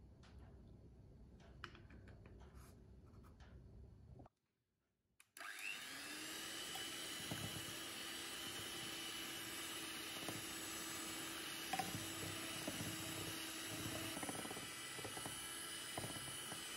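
Electric hand mixer starting about five seconds in, spinning up briefly and then running steadily as its twin wire beaters whisk eggs and sugar in a glass bowl, with occasional short clicks.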